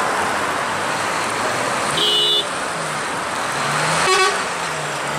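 Road traffic with engines idling and moving, and two short vehicle horn honks, one about two seconds in and a louder one about four seconds in.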